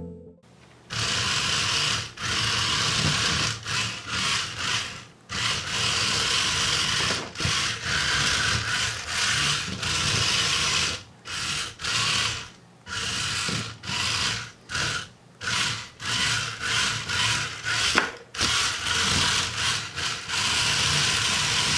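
Yellow plastic-gearbox DC motors of a small four-wheel Arduino robot car whirring in short bursts, starting and stopping every second or so as the car is driven and spun in place by phone control. One sharp click stands out late on.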